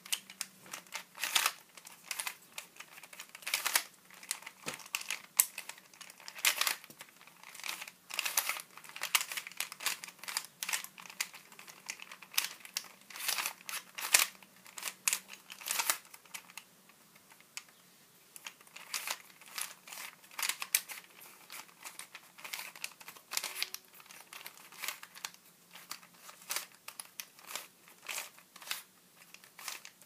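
Plastic layers of a handmade 3x3x5 cuboid twisty puzzle being turned by hand: quick, irregular runs of clicks and clacks as the layers snap round. There is a quieter spell a little past halfway.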